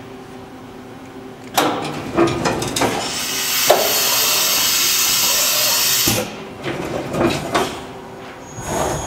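Fadal 4020 vertical machining center starting its program: a low hum, then a series of mechanical clunks and knocks, with a loud steady hiss lasting about three seconds in the middle, followed by more clunks.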